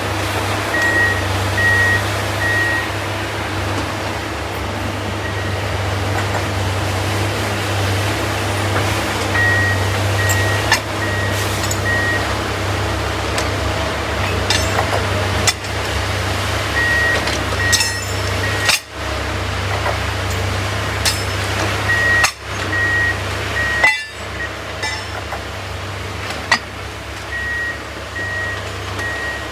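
Diesel engine of a rail-mounted magnet crane running steadily, with its travel alarm beeping in short runs every several seconds. Sharp metallic clinks now and then as railroad spikes and plates snap up onto the magnet.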